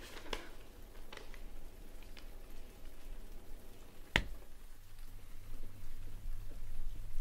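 A few soft clicks, then a single sharp knock about four seconds in, followed by a low steady hum.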